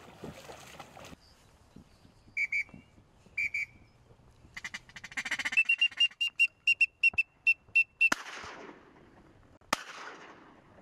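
High whistled duck calls: two short notes, then a quick run of about a dozen chirped whistles. They are followed by two shotgun shots about a second and a half apart, each with a trailing echo.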